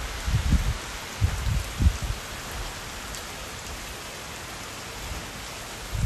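Heavy hurricane rain falling steadily on a street and nearby surfaces as a constant hiss. Gusts of wind buffet the microphone a few times in the first two seconds.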